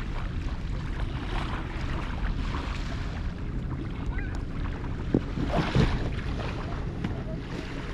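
Surf washing up the beach in hissing swells over a steady low rumble of wind on the microphone, with a few sharp knocks about five seconds in.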